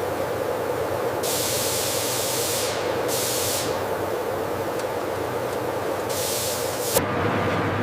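Steady food-processing machinery hum, with hissing spray or air coming and going in patches of about a second. A single sharp click near the end.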